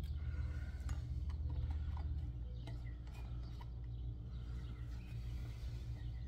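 A steady low hum with faint, scattered light clicks and rustles over it, fitting small handling of a paper towel and brush.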